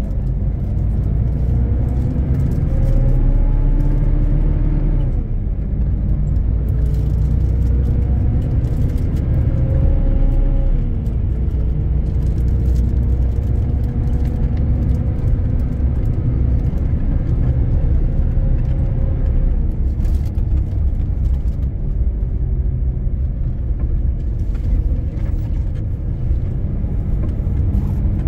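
Volvo B12R bus's rear-mounted 12-litre straight-six diesel engine under way, heard from inside the bus. Its pitch climbs as it accelerates, falls back sharply about five and eleven seconds in, then runs steadier over a constant low rumble.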